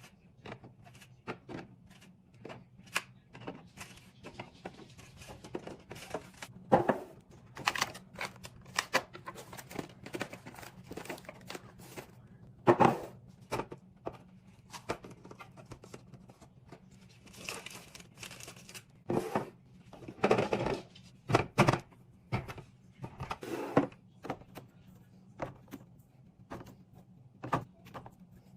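Food packaging and containers being handled and set into a fridge during restocking: scattered clicks and knocks, with short bursts of crinkling plastic.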